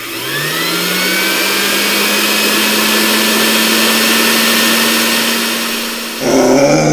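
A household appliance's electric motor starting up, its whine rising in pitch over the first second, then running loud and steady for about six seconds before stopping abruptly.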